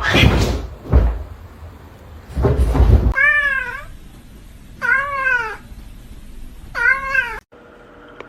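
A domestic cat meowing three times, each meow a short call that rises and then falls in pitch. Two short bursts of noise come before the meows.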